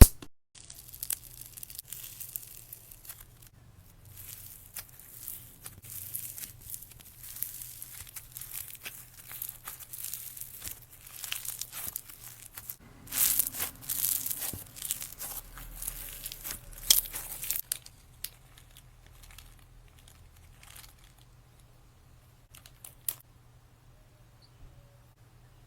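Slime being worked by hand, giving sticky crackling and small popping noises in clusters, loudest a little past the middle. It dies away after about eighteen seconds, leaving only an odd faint click.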